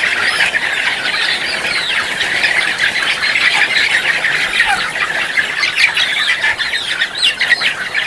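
A large flock of caged white laying hens calling together: a dense, steady chorus of many overlapping short, high calls.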